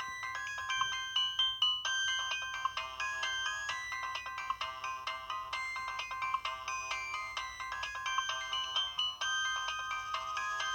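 Nokia 6060 mobile phone playing a polyphonic ringtone: a quick melody of short stepped notes, with a brief break about two seconds in.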